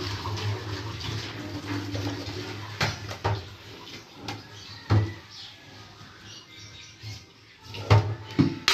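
Hot parboiling water pouring off from a metal pot into a sink in a steady rush, tailing off after about three seconds. The pot then knocks against the sink several times, the loudest knocks near the end.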